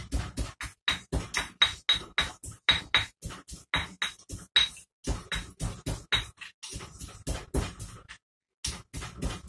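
Pestle pounding in a stone mortar, a steady run of sharp knocks about three to four a second, breaking off briefly near the end before starting again.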